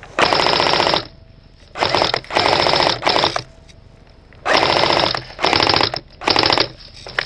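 Airsoft electric rifle, a Steyr AUG type, firing on full-auto in six short bursts of rapid clicking shots with brief pauses between them.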